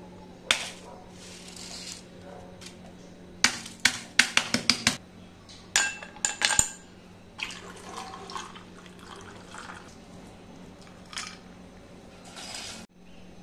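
Kitchen prep sounds in sequence: a knock or two of a brass tool breaking honeycomb toffee, then a quick run of sharp, ringing clinks as ice cubes drop into a drinking glass, then milk poured over the ice. Near the end, a click and a short rustle as toffee chunks are dropped in.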